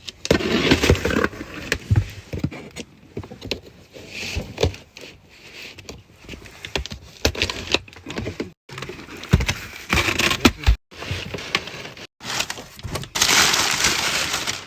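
A gift box being handled and opened by hand: scattered knocks, clicks and rustling, then a few seconds of steady paper rustling near the end.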